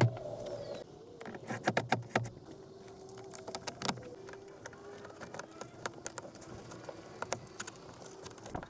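Plastic interior trim panel being handled and fitted back onto a car's rear door: a run of sharp clicks and knocks, busiest in the first couple of seconds, over a faint steady hum.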